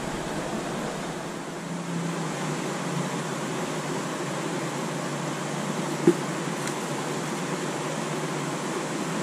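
Steady rush of a shallow river running over rocks. One short, sharp knock comes about six seconds in.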